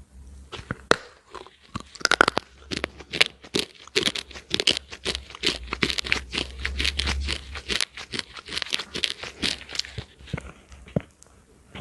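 Close-miked crunching and crackling as someone bites into and chews a brittle, flaky piece held to the mouth: a dense run of sharp cracks that thins out near the end.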